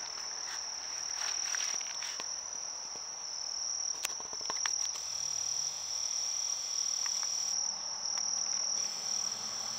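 Insects trilling in a steady, unbroken high-pitched drone, with a few faint clicks about four seconds in.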